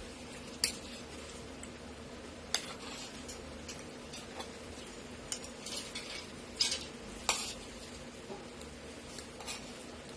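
Spoon and fork scraping and clicking against a plate of rice, in scattered strokes a second or two apart, over a faint steady hum.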